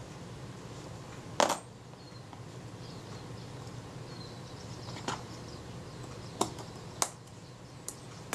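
Small metallic clicks and taps of tweezers and tiny parts on a Synchro-Compur leaf shutter during reassembly, about five in all. The sharpest comes about a second and a half in.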